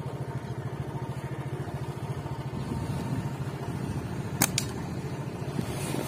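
Motorcycle engine running steadily with a rapid low pulse. Two sharp clicks close together about four and a half seconds in.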